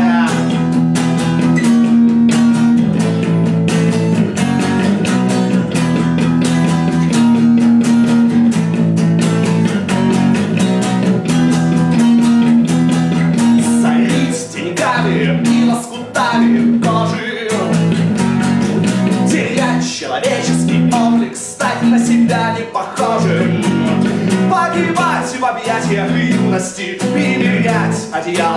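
A live acoustic song: a man sings loudly over a strummed acoustic guitar and a bass guitar playing a steady bass line.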